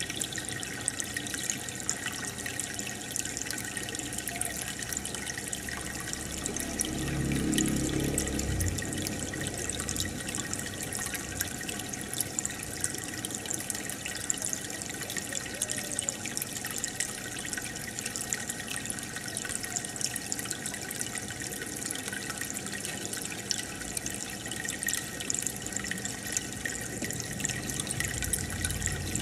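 Aquarium water bubbling and trickling from the air stone and filter: a steady stream of small bubble pops and splashes. A brief low rumble about seven seconds in.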